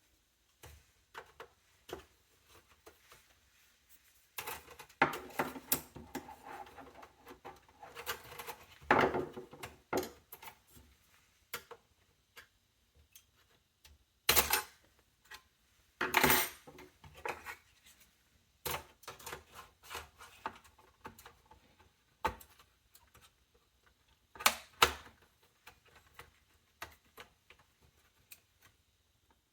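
Clicks, knocks and metallic clatter of computer parts being handled and fitted into a small-form-factor desktop's sheet-metal case, with a busier stretch of scraping and rattling early on and a few sharper knocks later.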